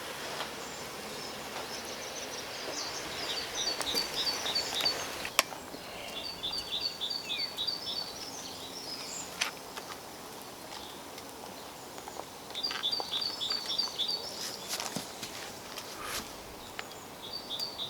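A songbird singing a short, rapid run of high, evenly spaced notes, the phrase repeated four times a few seconds apart over steady background noise, with a few sharp clicks in between.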